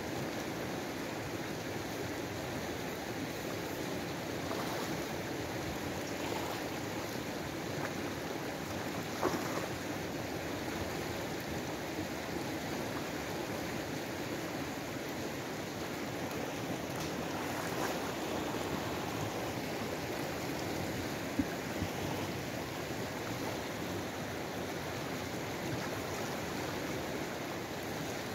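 Fast-flowing, rain-swollen muddy river: a steady rush of moving water, broken twice by a brief knock.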